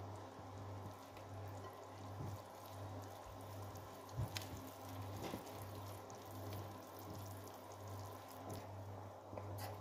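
Faint wet stirring of flour and liquid with a wooden spoon in a glass bowl, with a few light clicks of the spoon against the glass about four and five seconds in and near the end. A low hum swells and fades in a steady rhythm underneath.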